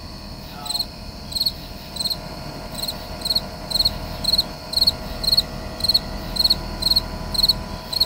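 A cricket chirping in a steady rhythm, about two and a half short trilled chirps a second. Under it is the steady hum of an idling Yanmar ViO50 mini excavator engine.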